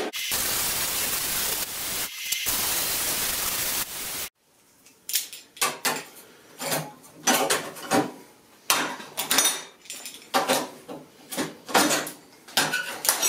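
Handheld plasma cutter cutting sheet steel: a loud, steady hiss of the arc and air jet that dips briefly about two seconds in and cuts off sharply after about four seconds. Then a run of sharp metallic clinks and clanks, about one a second, as the freshly cut steel pieces are handled with locking pliers.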